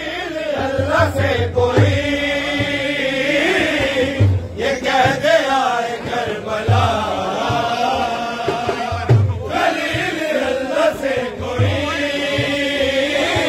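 Men chanting a Shia nauha (lament) together in long sung lines, with short breaks between phrases and a deep thump about every two and a half seconds.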